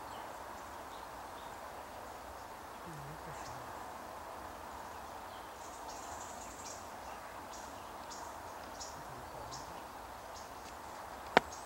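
Faint steady outdoor background with scattered high chirps from small birds. Near the end, a single sharp gunshot from a hunting gun.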